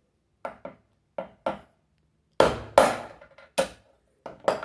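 A screwdriver striking a fan motor's bushing through a hole drilled in the motor housing, knocking the bushing out: about eight sharp knocks in uneven pairs, the loudest a little past the middle.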